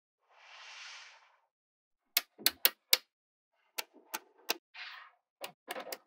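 Small magnetic balls clicking sharply together as strips of them are snapped into place by hand, in quick groups of three or four clicks. A softer rasping shuffle comes about half a second in and again near five seconds, as balls are pushed along the tabletop.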